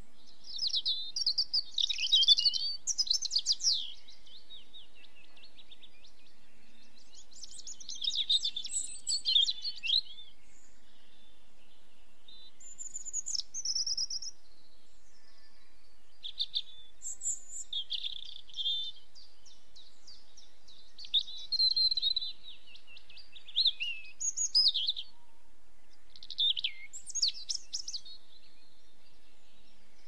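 Small garden songbirds singing: short, high-pitched phrases of trills and chirps every few seconds, with a few seconds' pause between them.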